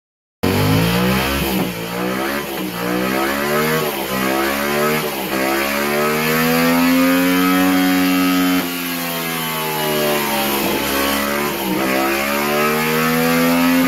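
Yamaha MT-07's parallel-twin engine revving hard under load on a chassis dyno, with the pitch dropping briefly at each gear change and then climbing in a long pull in top gear. It is running on a flash-tuned stock ECU.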